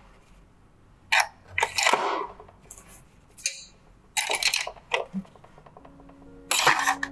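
Metal manicure tools, such as scissors and nail files, clinking and clattering as they are handled and dropped into a plastic tool caddy: about five separate short clatters with pauses between.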